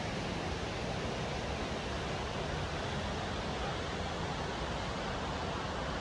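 Steady rush of cascading mountain-stream water, the Gutach above the Triberg falls: an even, unbroken hiss of water.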